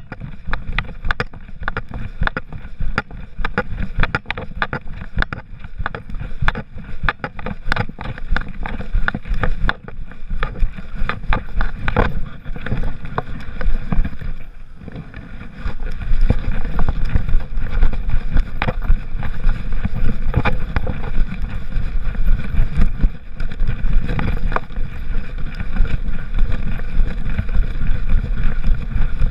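Movement noise from a GoPro HERO3 strapped to a walking poodle's back: rapid, irregular knocks and rattles of the camera and its mount jostling with the dog's steps, over a rumble of wind and rubbing on the microphone. There is a short lull about halfway through, and after it the rumble is louder.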